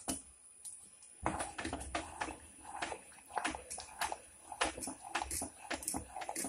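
A ladle stirring a thick, bubbling mix of moong dal and jaggery in an aluminium pressure-cooker pot: irregular scrapes against the pot and wet slaps of the mixture, getting busier about a second in. The mix is being stirred without stopping as it is reduced until thick, so it does not stick to the bottom.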